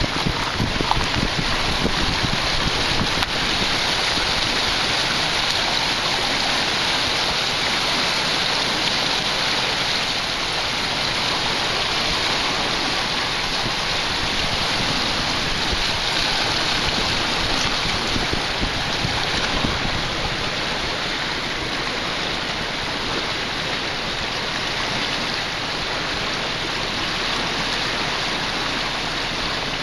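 Fast floodwater rushing and churning past in a strong current, a steady rushing hiss, with wind buffeting the microphone in the first few seconds.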